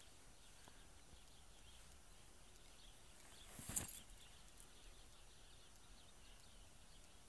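Faint open-air ambience with small bird-like chirps. A little past halfway there is a short rustle that builds to one sharp click, the handling noise of a lever-action rifle being shifted and brought to the shoulder.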